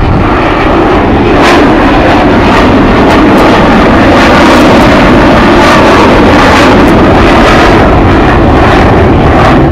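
Avro Vulcan's four Rolls-Royce Olympus turbojets passing overhead in a very loud, steady jet roar, with short crackles through it.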